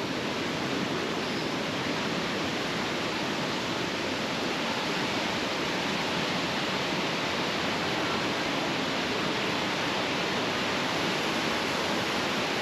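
Datanla Waterfall's falling water making a steady, even rush.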